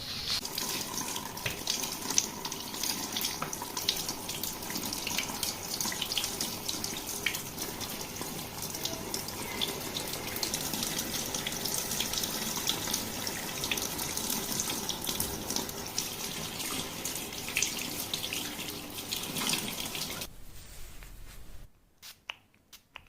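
Water running steadily through hair and splashing, as the hair is rinsed during a scalp-care wash; it thins out about 20 seconds in and stops about a second and a half later, leaving a few faint clicks.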